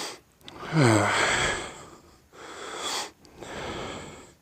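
A man breathing hard close to the microphone: a short voiced sigh that falls in pitch about a second in, then two more loud exhalations.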